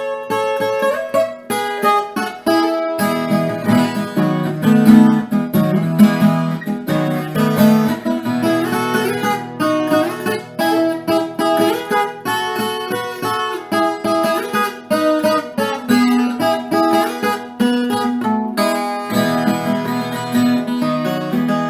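Background music: acoustic guitar, plucked and strummed, with a steady bass line.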